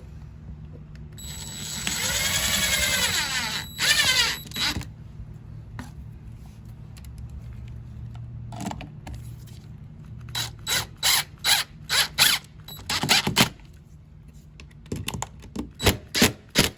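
Power drill driving screws into the wall to fasten a pipe clip: a run of the motor of a couple of seconds, its pitch rising and falling, starting about a second in, then a series of short trigger bursts in the second half as the screws are run home.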